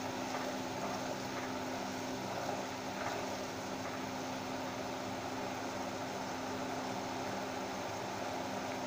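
Sugar syrup boiling hard in a kadai over a gas flame turned up high, a steady bubbling hiss. The syrup is still short of one-string consistency.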